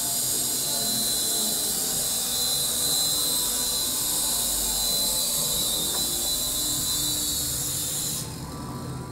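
Metal 3.5-channel micro RC helicopter's small electric motors and spinning rotors running with a steady high whine and hiss as it hovers. Near the end the high whine cuts off suddenly and the sound drops.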